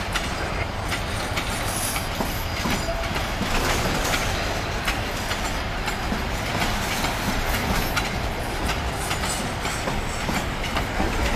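Freight train wagons rolling past close by: a steady rumble of steel wheels on the rails, with irregular clicks and clacks as the wheels pass over the track.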